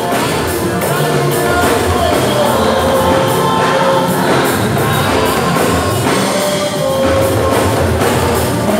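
Gospel worship music performed live: men singing into microphones over a band, with cymbals and drums keeping a steady beat.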